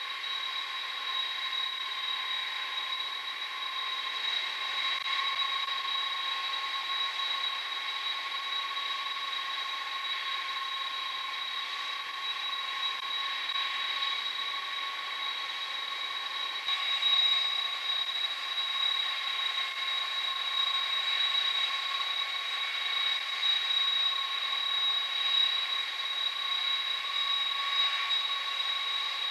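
KC-10 Extender tankers' turbofan engines idling: a steady high-pitched whine with two held pitches over a hiss and no low rumble. It gets a little louder about seventeen seconds in.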